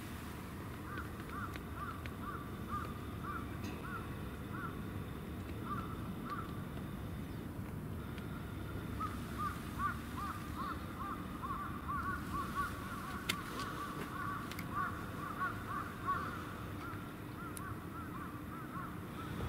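A bird calling in long runs of short, quick, repeated notes, about three a second, pausing briefly partway through. Underneath is a steady low rumble of outdoor background.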